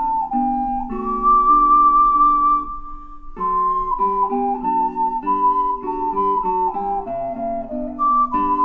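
Ocarina playing a slow melody over plucked acoustic guitar accompaniment. A long held note comes about a second in, then a short pause near three seconds, before the tune picks up again and steps downward.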